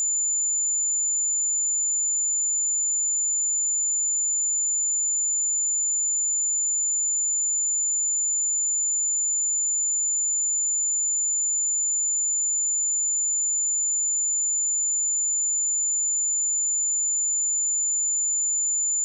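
A steady pure sine-wave test tone at 7056 Hz, a single high-pitched whistle held at an even level without a break.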